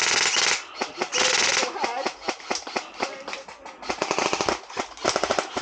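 Airsoft rifles firing several short bursts of rapid full-auto fire, with scattered single shots between the bursts.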